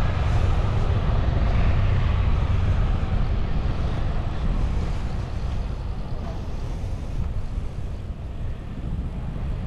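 Wind buffeting the microphone of a camera moving along on a bicycle: a steady low rumble that eases a little over the second half.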